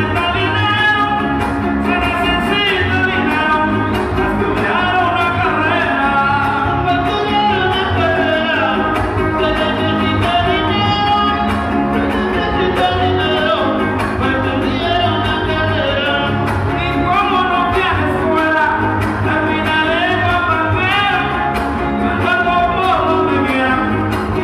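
Live Latin dance band playing loud, continuous dance music with singing.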